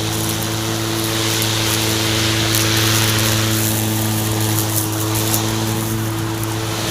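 EGO 56V cordless electric lawn mower running at a steady hum over a rushing hiss, with occasional faint ticks.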